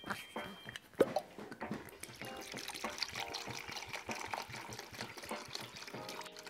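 Rum pouring from a glass bottle into a measuring jug, a steady trickle with small gurgles. A single sharp click comes about a second in, before the pour.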